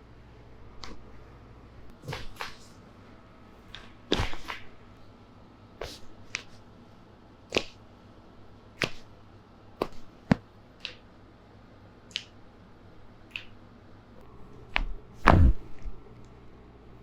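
Joints cracking under chiropractic adjustments: a string of sharp pops and clicks, some in quick clusters of two or three. The loudest comes near the end with a heavier thump under it.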